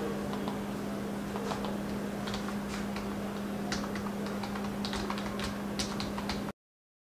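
Typing on a computer keyboard: irregular key clicks over a steady low hum, stopping abruptly near the end.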